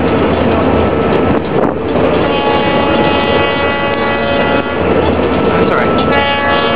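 Wind buffeting a flip phone's microphone over the steady drone of a ferry's engine, the sound dull and cut off at the top. About two seconds in, a steady pitched tone with many overtones comes in; it breaks off briefly around five seconds and comes back near the end.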